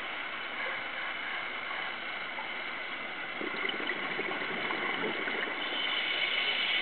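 A scuba diver's breathing through a regulator, a steady hiss with bubbling, recorded underwater inside a camera housing. A brighter breath hiss comes in near the end.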